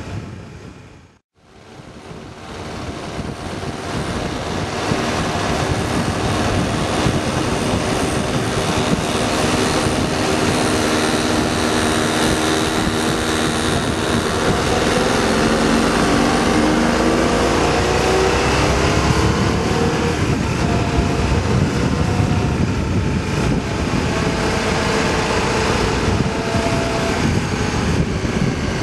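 Motorcycle engine running on the road with wind rushing over the microphone. The sound cuts out briefly about a second in and fades back up; from about the middle the engine pitch climbs steadily as the bike speeds up, then falls back about two-thirds of the way through.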